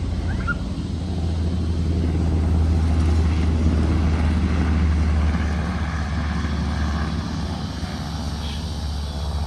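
Black Hawk helicopter's steady low drone of rotors and engines, growing louder over the first few seconds, then slowly fading.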